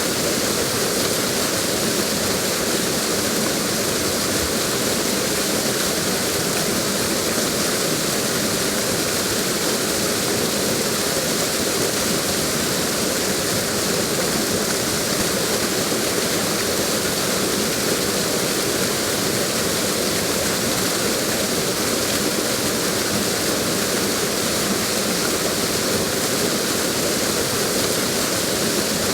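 Waterfall: water pouring and splashing in a steady, dense rush with no change in level.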